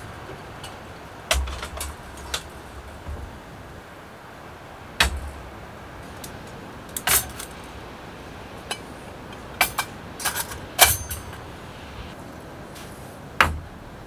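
Metal camping gear, lanterns and a folding stove, being handled and set down on a slatted wooden table: a dozen or so scattered clinks and knocks, the sharpest about five seconds in and just before eleven seconds, over a steady faint hiss.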